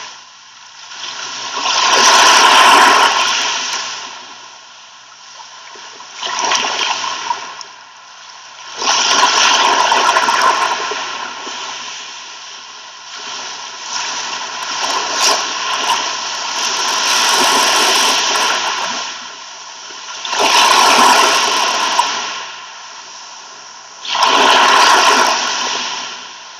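Ocean waves washing onto a shore, the surf swelling and ebbing in repeated surges every three to four seconds.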